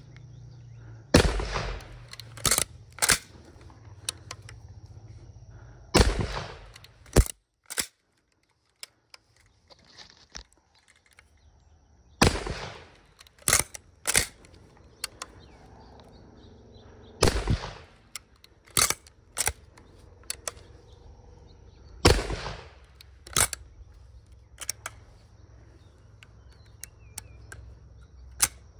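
Five shotgun shots from an antique Alofs multi-barrel shotgun, spaced about five seconds apart. Each shot is followed a second or so later by two short, sharp clicks as the gun is worked for the next barrel.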